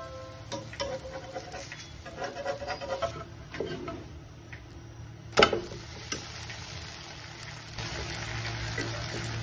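Metal utensils clicking and knocking against a cast-iron pan as a hotcake is turned with a spatula and fork, with one sharp clack about five seconds in. A low steady hum sets in near the end.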